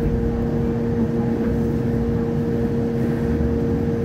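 Hong Kong Light Rail Phase III car heard from on board: a steady rumble with a constant two-note hum that does not change in pitch.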